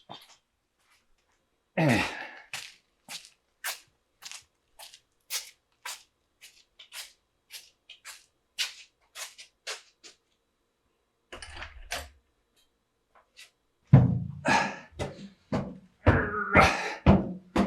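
Footsteps walking at an even pace, about two steps a second, from a person carrying a heavy anvil; from about three-quarters of the way in come louder, heavier thuds.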